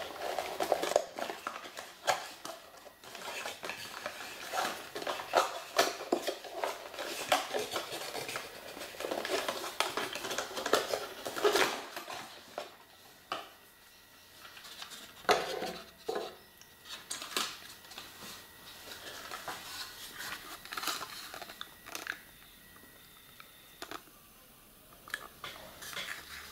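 Hands unpacking a Beyblade toy: irregular clicks, clatter and rustling of plastic packaging and parts. The sounds are busiest in the first half, with a sharp clack about fifteen seconds in.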